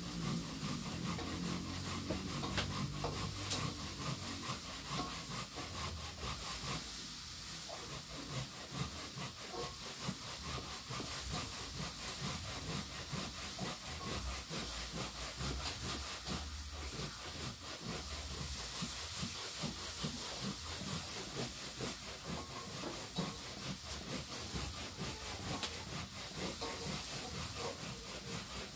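Chicken nuggets frying in hot oil in a pan, a steady sizzling hiss, with a metal spatula scraping and turning them now and then.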